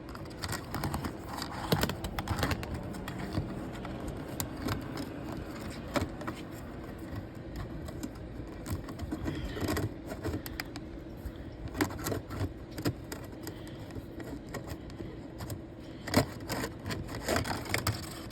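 Metal cable of a small hand-operated sewer drain snake being worked inside a dryer vent duct to clear lint: irregular scraping, rattling and clicking, over a steady low hum.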